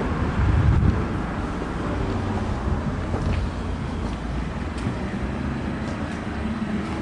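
Steady low rumble of outdoor background noise, with a brief louder low rumble just under a second in and a few faint ticks.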